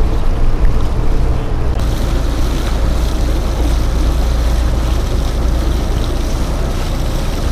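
Steady low rumble of a tour boat under way on a city river, with water rushing past and wind buffeting the microphone. The hiss grows brighter about two seconds in.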